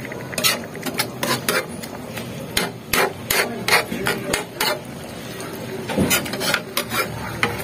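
A metal ladle scraping and clanking against a metal wok while stirring grated papaya in thick coconut milk. The knocks come in quick clusters, with a short lull about five seconds in before a final run.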